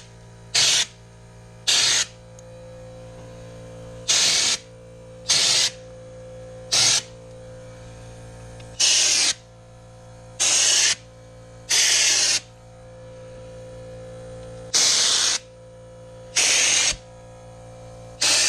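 Air-powered spray gun hissing in about ten short bursts, each under a second, as liquid sound-deadening coating is sprayed onto a car hood. A steady low hum runs underneath.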